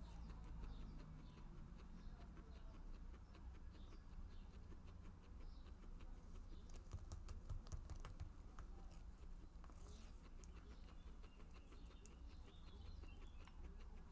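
Guinea pig chewing corn leaves: faint, rapid crisp clicks and crunches of the leaf between its teeth, thickest in the middle, over a low steady hum.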